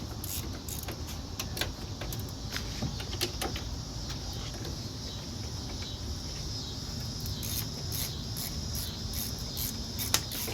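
Crickets chirping in fast, even pulses, louder near the end, with a few sharp metallic clicks of tools on metal as the hub-assembly bolts are started by hand.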